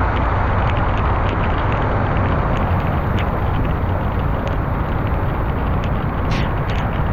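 Steady noise of a car driving, a low rumble under an even hiss, with occasional light ticks.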